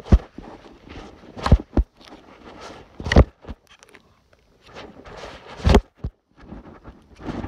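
Hatchet chopping into a small tree trunk: about five sharp blows at uneven intervals, with rustling between them.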